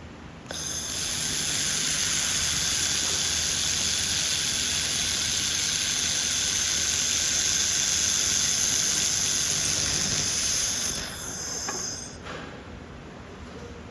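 A 1.5 kW handheld fiber laser machine working on steel: a loud steady hiss with a high-pitched whine that switches on about half a second in, holds for about eleven seconds and cuts off near the end.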